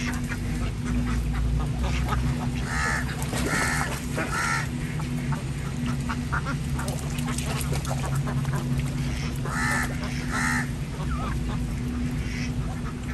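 Domestic ducks quacking in short calls, a cluster of three or four about three seconds in, two more near ten seconds and one near the end, over the splashing of ducks dabbling in the water and a steady low hum.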